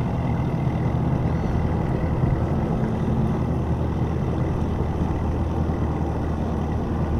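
Bass-boat outboard engine idling steadily, a low even hum with wind and water noise over it.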